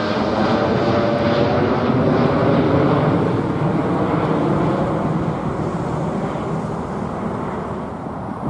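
Boeing 787-8 Dreamliner jet climbing out overhead after takeoff. Its engines make a steady roar that peaks about three seconds in, then fades as the plane moves away.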